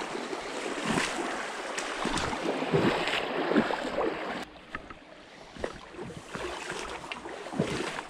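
Shallow stream water rushing and sloshing close by, with small splashes from wading. It turns quieter about halfway through.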